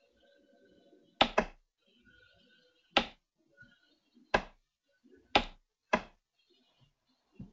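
About six sharp computer mouse clicks, the first two in quick succession about a second in, then single clicks spaced a second or so apart.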